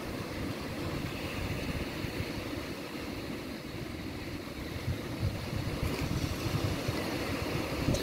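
Wind buffeting the microphone in uneven gusts over the rush of small waves breaking on a sandy shore.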